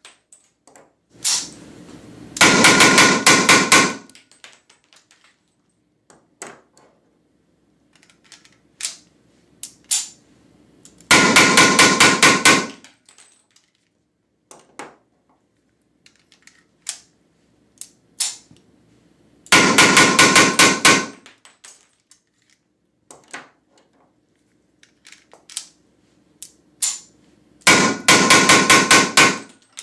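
Weihrauch HW94 blank pistol firing SK Schönebeck 9 mm P.A.K. blank cartridges in rapid strings: four bursts of shots in quick succession, about eight seconds apart. Between the strings there are small metallic clicks of handling and reloading.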